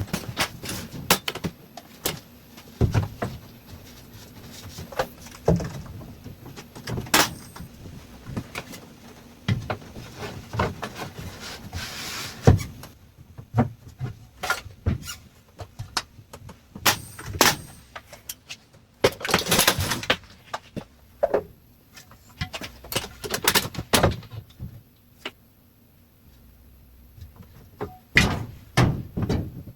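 Irregular knocks, taps and clatter from carpentry work on door framing, with about a second-long rush of noise some twenty seconds in.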